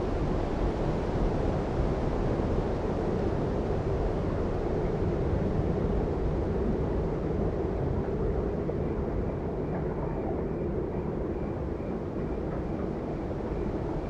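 Wind blowing steadily through bare trees, a low rushing noise without a break.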